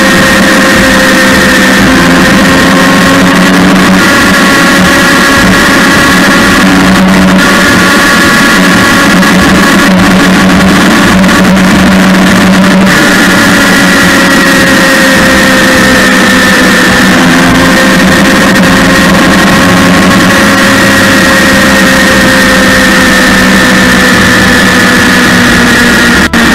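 Yamaha MT-09's inline three-cylinder engine running at a steady cruise under wind rush, its tone drifting only slightly with road speed.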